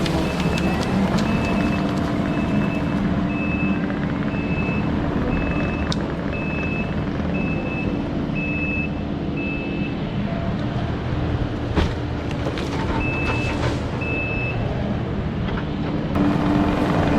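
Heavy machine's reversing alarm beeping at a little under one and a half beeps a second over the machine's engine running steadily. The beeping stops about ten seconds in, a single sharp knock follows, and three more beeps come near the end.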